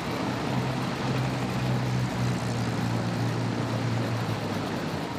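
Street traffic noise with a vehicle engine's steady low drone, which fades out near the end.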